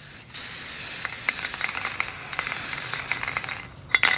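Aerosol can of Botny rubber paint spraying in one long, crackly hiss, then a brief pause and a short second burst near the end. The can is nearly empty.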